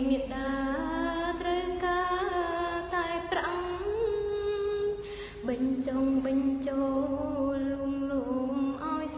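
Slow Khmer song: one melody line of long held notes that waver and glide between pitches.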